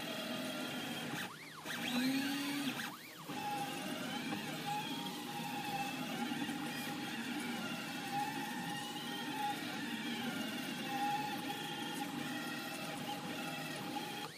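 3D printer's stepper motors whining while printing, the tones gliding up and down in smooth arcs as the head speeds up and slows down. The sound briefly stops about a second and a half in and again about three seconds in.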